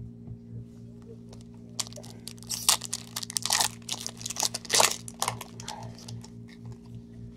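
Foil wrapper of a Bowman Chrome baseball card pack being torn open and crinkled by hand. The crinkling starts about two seconds in, is loudest in the middle, and dies away near the five-and-a-half-second mark as the cards come out.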